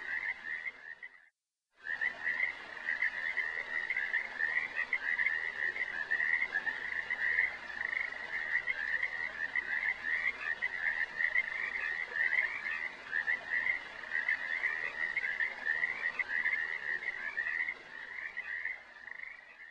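Steady chorus of rapid, pulsing animal calls at one high pitch, like a frog chorus. It cuts out for a moment about a second in, then carries on.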